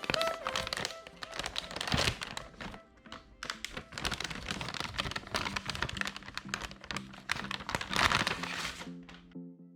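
Background electronic music with packaging being handled over it: irregular rustling, crinkling and thunks, typical of a graphics card box and its wrapping being opened, which stop shortly before the end.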